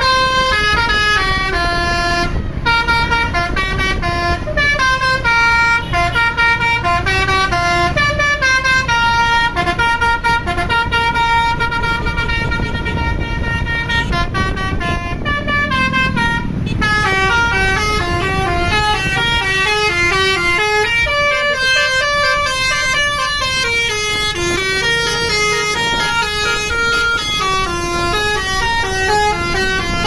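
A tour bus's Basuri V3 telolet musical air horn playing a tune of quick, stepping notes without a break, over the low sound of the bus engine running.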